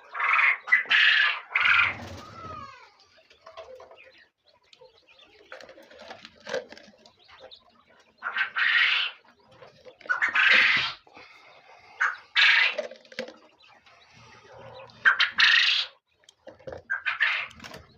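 Birds calling in loud, separate cries about a second long, several times, with quieter pauses between them.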